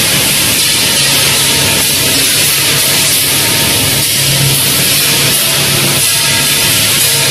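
Electric-motor rotor crushing and copper separating plant running: a loud, steady machinery noise with a low hum that swells and fades.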